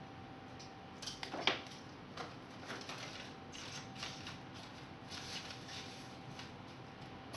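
Paper and plastic rustling and crinkling in a run of irregular light crackles as a kitten scrambles among them, loudest about one and a half seconds in.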